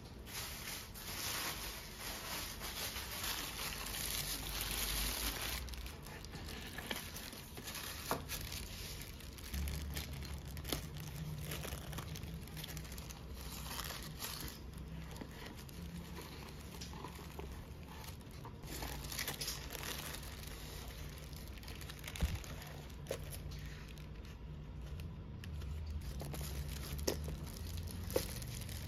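Packaging being unwrapped by hand. A plastic-wrapped parcel is torn open and crinkled, with a steady rustle for the first five seconds or so. After that, tissue paper rustles inside a cardboard box, broken by a few light taps and clicks.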